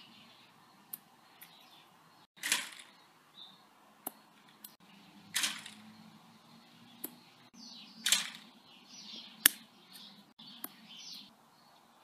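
Birds chirping, most clearly in the second half, with scattered sharp clicks and short rushes of noise about every three seconds.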